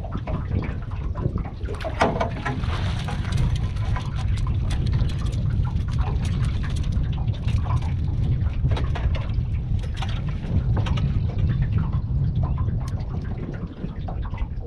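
Wind buffeting the microphone, with water splashing and scattered knocks and clatters as a flathead is netted and lifted into a small aluminium boat.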